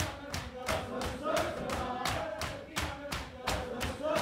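Crowd of mourners doing matam, open hands slapping their chests in a steady beat of about three to four slaps a second, while voices chant a lament in short repeated phrases over the beat.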